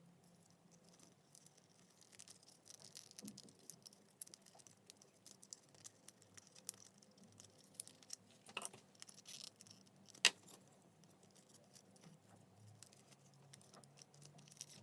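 Faint, scattered light clicks and taps of small plastic parts and tools being handled, with one sharper click about ten seconds in.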